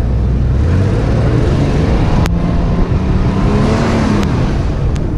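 Toyota Prado 120's engine revving as its wheels spin in soft sand with traction control switched off. The engine note climbs from about a second in to a peak near the end, with a hiss of spraying sand at the peak and a few sharp knocks.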